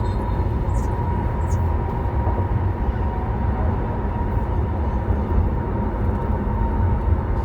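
Steady low rumble of a BMW 5 Series GT (F07) 20d heard from inside the cabin while driving: tyre and road noise with the engine running underneath, even throughout.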